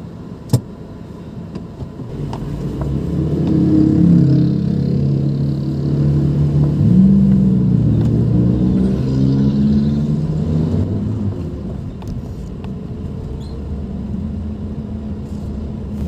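Car engine heard from inside the cabin as the car pulls away and gathers speed, its pitch climbing and dipping, then settling into steady cruising. A sharp click about half a second in.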